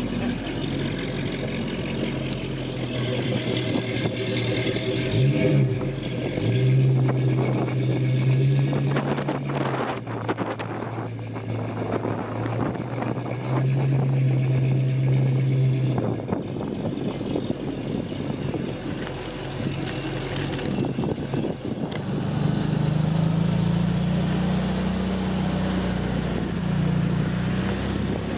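Classic cars' engines running as they pull away at low speed, with a brief rev about five seconds in and a different engine note in the last few seconds.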